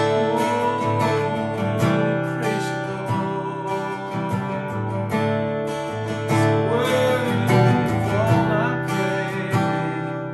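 Acoustic guitar strummed in a steady rhythm, about two strokes a second, with a man's voice singing over it, most clearly in the second half.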